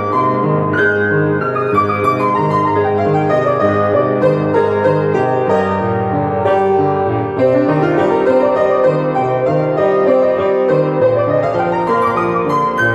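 A Beckwith keyboard instrument is being played by hand: a steady, repeating bass pattern under chords and a melody line.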